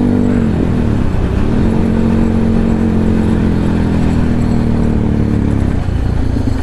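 Yamaha WR155R's single-cylinder engine, breathing through an aftermarket Qala Performance exhaust, running under way at a steady pitch. Its revs dip briefly about half a second in and climb back, then hold steady. Near the end the revs fall away into a choppy, low off-throttle note.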